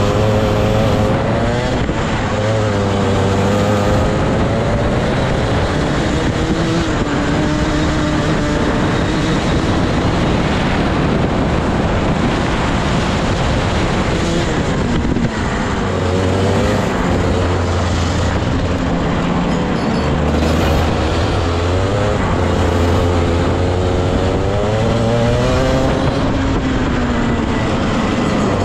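Rotax Max 125 cc two-stroke kart engine at racing speed, heard from on board the kart. Its pitch rises and falls again and again as the kart accelerates and brakes through the corners of a lap.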